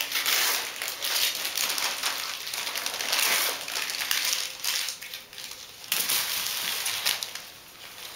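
Paper wrapping rustling and crinkling in irregular bursts.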